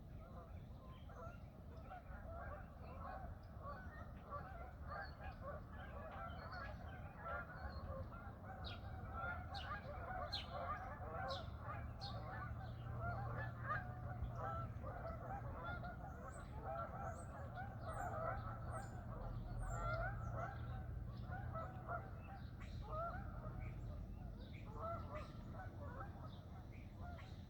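A flock of Canada geese honking, many overlapping calls at once, growing louder through the middle and easing off toward the end, over a low steady rumble.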